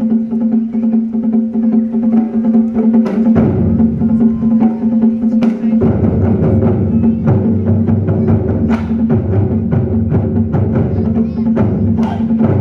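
Drum ensemble playing: deep drums rumbling with sharp, clacking strikes over a steady held pitch, the low drumming growing denser about a third of the way in.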